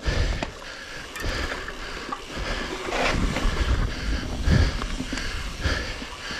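Mountain bike riding down a dirt singletrack: tyres rolling over loose dirt, with scattered knocks and rattles from the bike over bumps and wind buffeting the microphone in uneven gusts.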